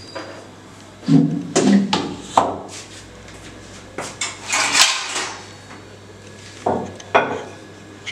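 Kitchen dishes and utensils clinking and knocking as they are picked up and set down, in three clusters: about a second in, around the middle, and near the end.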